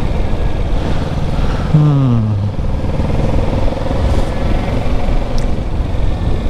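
Kawasaki Ninja 650 motorcycle running while riding, a steady engine and road rumble. About two seconds in, a short falling tone.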